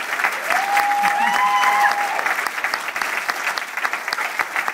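Theatre audience applauding, a dense, steady clapping. About half a second in, one drawn-out cheer rises above it for under two seconds.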